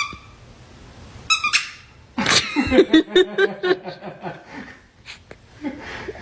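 A short high squeak about a second in, then a dog vocalizing in a quick string of short, pulsing yowls for about two seconds, trailing off into softer sounds.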